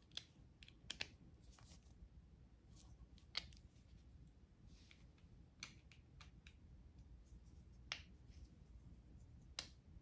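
Near silence: room tone with about half a dozen short, faint clicks scattered through it.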